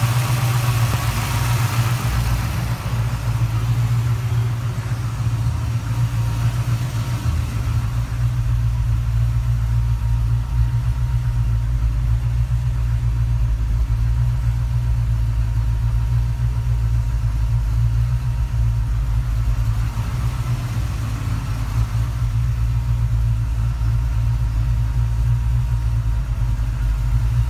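A 347 stroker small-block Ford Windsor V8 with FAST EZ-EFI fuel injection idling steadily. There is more high hiss in the first couple of seconds.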